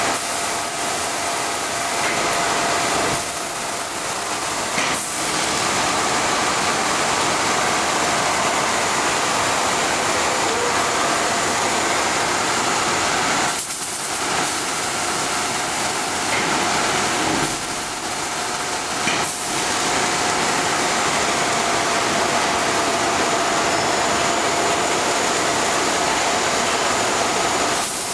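Blown-film plastic extrusion machine running: a steady, even machine noise with a constant whine, dipping briefly a few times.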